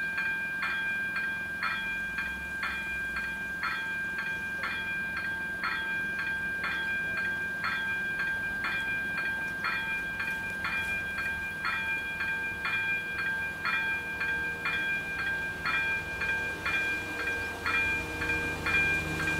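Electronic warning bell of a Czech level crossing's AŽD 97 signals, ringing in even strokes about twice a second over a steady high tone: the crossing is closed for an approaching train. Near the end a low rumble of the oncoming train builds underneath.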